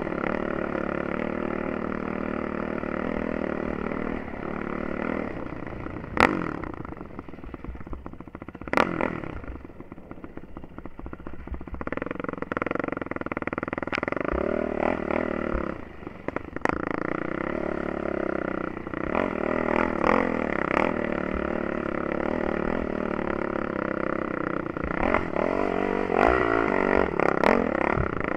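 Yamaha YFZ450 quad's single-cylinder four-stroke engine revving up and down under riding load, easing off briefly a couple of times. Sharp knocks cut in about six and nine seconds in and several more near the end.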